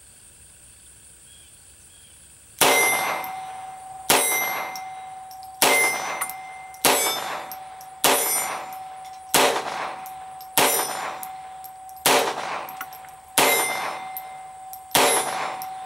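Sig Sauer 1911-22 semi-automatic pistol in .22 LR fired ten times at a slow, even pace, about one shot every second and a half, each report followed by a short ringing decay. The first shot comes a couple of seconds in.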